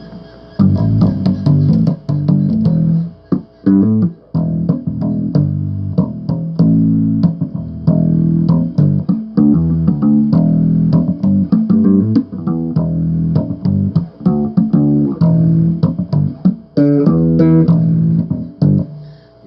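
Bass guitar played solo, a run of plucked riffs with short breaks between phrases.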